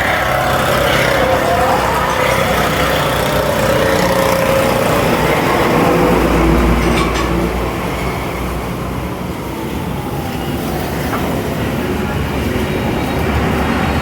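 Workshop machinery running steadily, a dense mechanical noise with a faint whining tone through it.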